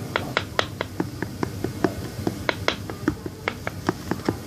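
Spoon stirring a glue slime mixture in a container, making a fast, irregular run of sharp clicks, about four or five a second.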